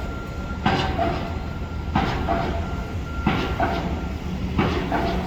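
Heavy machinery outside: a steady low rumble with a loud metallic clank about every second and a half.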